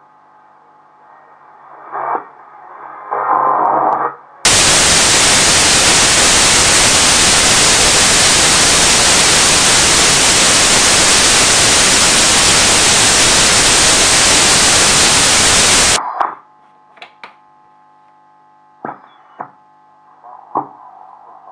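Volksempfänger VE 301 W tube radio being tuned. Faint stations swell in briefly at first. About four seconds in, a loud even hiss starts abruptly and runs for about eleven seconds, then cuts off. Faint steady whistling tones with a few crackles and clicks follow.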